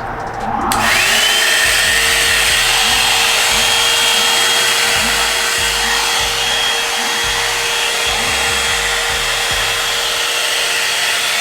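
Hot-air dryer brush switching on about a second in, its motor spinning up with a rising whine, then running steadily with a whir and a rush of air. It cuts off suddenly at the end.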